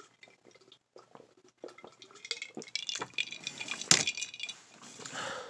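A person drinking from a bottle: liquid sloshing and swallowing, with scattered clicks and knocks as the bottle is handled, the sharpest about four seconds in.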